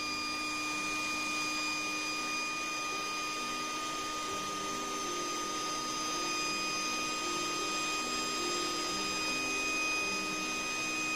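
Electric air mattress pump running steadily as a vacuum blower: a constant high whine over a rushing hiss of air.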